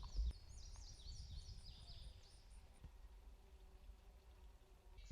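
A small songbird singing a quick run of high, down-slurred notes for the first two and a half seconds, starting up again near the end, over a faint low rumble.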